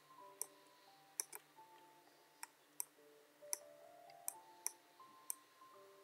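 Irregular sharp clicks of a computer mouse, about eight in six seconds, over faint soft background music of slow held notes.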